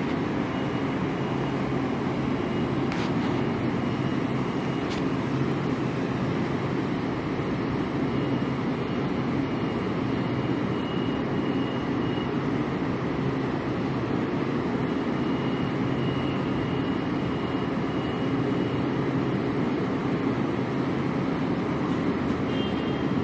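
Steady hum of a Metro-North M8 electric train standing at the platform, with a faint high whine that drops out for a few seconds in the middle.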